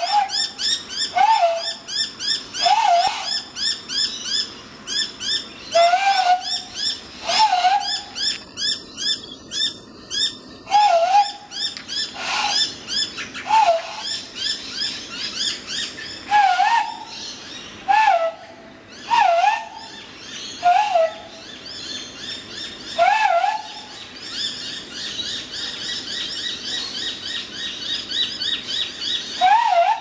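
A hooting bird call blown through cupped hands, repeated every second or two with a quick up-and-down wobble in pitch. Behind it a dense chatter of many birds' chirps, which near the end becomes a steady chorus while the hand call stops for a few seconds.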